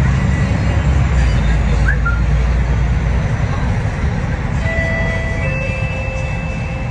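Interior drone of a moving MAN ND323F double-decker bus: its diesel engine and running gear give a steady low rumble, with road noise heard through the cabin. The rumble eases a little in the second half, and a faint high whine comes in near the end.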